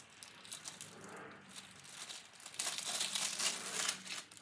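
Clear plastic packaging bag crinkling as it is handled and a mounting bracket is pulled out. It is faint with scattered crackles at first, then louder and denser from a little past halfway.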